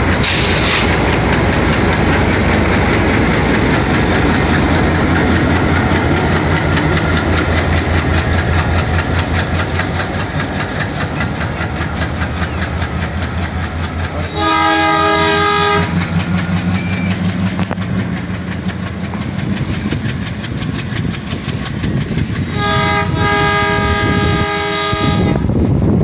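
WDM3D diesel locomotive with its ALCO 251 engine chugging as it pulls a passenger train away, wheels clacking over rail joints. Its horn sounds twice: a short blast about halfway through and a longer one near the end.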